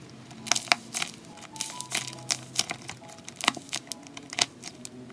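Clear-tape-wrapped paper squishy pop-it toy crinkling and crackling as it is squeezed and its taped bubbles are pressed, in a run of irregular sharp clicks starting about half a second in, over soft background music.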